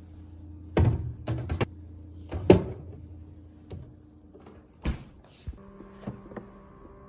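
Drink cartons knocking into a refrigerator's plastic door shelves and the door being handled: a handful of sharp knocks and thuds, the loudest about two and a half seconds in, over a low steady hum. Soft background music with sustained notes comes in a little past the middle.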